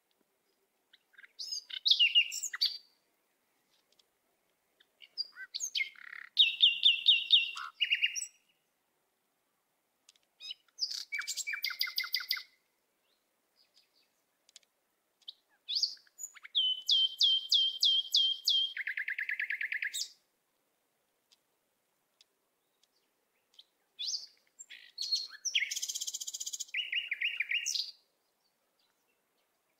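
Songbird singing in five short phrases a few seconds apart, each a run of fast repeated high chirps and trills, with silence between them.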